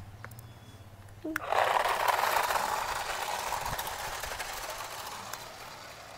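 Remote-control toy car's small electric motor and gears whirring: it starts about a second in with a brief rising note, then fades gradually.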